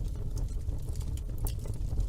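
Wood fire burning in a fireplace: a low steady rumble of the flames with sharp, irregular crackles and pops from the burning logs, a few every second.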